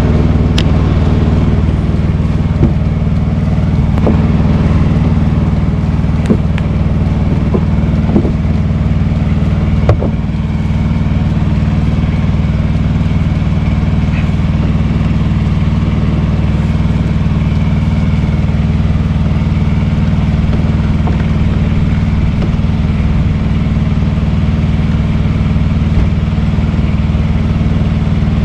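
An engine running steadily at constant speed, with a few sharp knocks and clicks in the first ten seconds.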